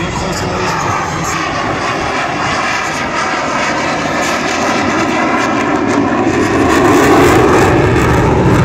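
An F/A-18E Super Hornet's twin General Electric F414 jet engines, heard as the jet passes slowly overhead gear-down in carrier (landing) configuration. The jet noise has a wavering, phasing quality and grows louder toward the end.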